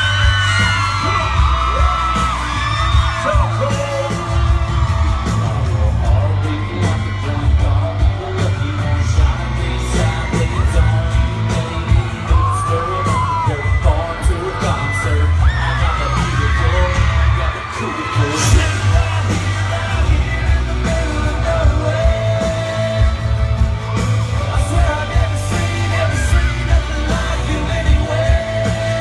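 Live country music concert: a band playing with heavy bass while a male singer sings, and crowd members yell and whoop over it.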